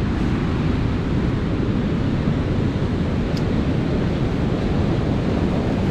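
Surf breaking on a beach: a steady rush of waves, with wind rumbling on the microphone.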